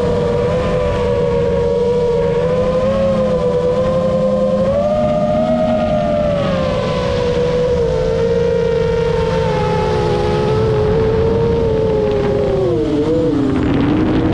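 A motor vehicle running, with a strong steady whine that wavers slightly and drops in pitch near the end, over a continuous low rumble.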